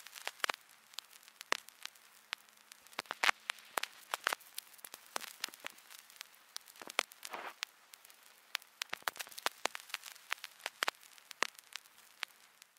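Vinyl record surface noise: irregular crackles and pops from the stylus riding the groove, over a faint hiss and a faint steady hum.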